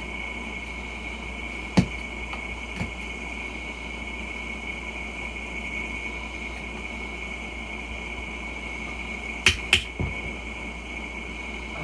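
Hammer strikes on a screwdriver working a tire's bead off the rim by hand. There is one sharp hit about two seconds in, a lighter one soon after, and a quick run of three near the end, over a steady high-pitched background hiss.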